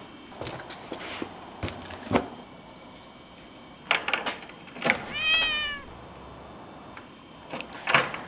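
Metal clicks and rattles from a padlock and latch on a wooden, chicken-wire cage door, with a few knocks near the start. A single cat meow, about two-thirds of a second long, comes about five seconds in.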